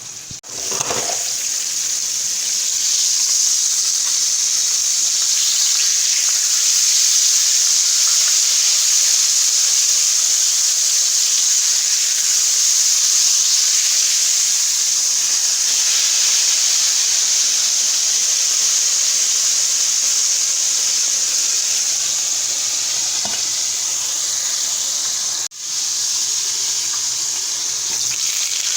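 Hot oil sizzling steadily around flour-breaded cube steak frying in a pan, with a brief break near the end.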